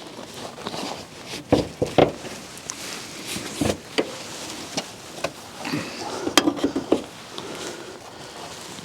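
Irregular clicks, knocks and rattles of the hood on a Dodge Journey being released and lifted, with sharper knocks about one and a half, two and three and a half seconds in and a flurry of small clicks near the end.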